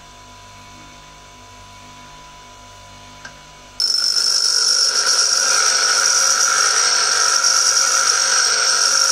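Bench grinder running with a steady hum. About four seconds in, a high-speed-steel parting-off tool is pressed against the wheel, and a loud, steady grinding hiss with a high ringing edge starts as side clearance is ground onto the tool.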